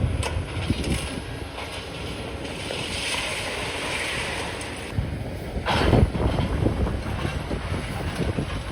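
Strong gusty wind buffeting the microphone: a constant low rumble, a rushing hiss in the middle, and a sharp loud gust about six seconds in.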